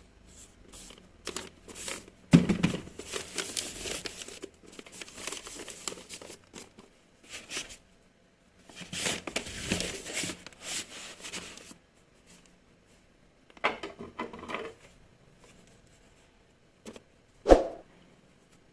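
Packaging being unwrapped by hand: tearing and crinkling in several bursts, with a sharp knock near the end.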